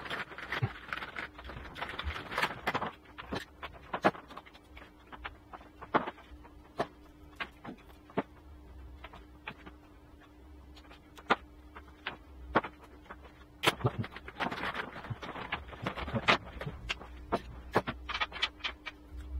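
Irregular small clicks, taps and rustles of hands handling coaxial cable and metal coax connectors on a wooden workbench, over a faint steady hum.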